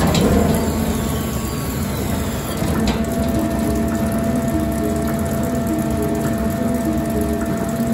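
Twin saw log edger running live: a steady mechanical hum, with a knock at the start and another about three seconds in.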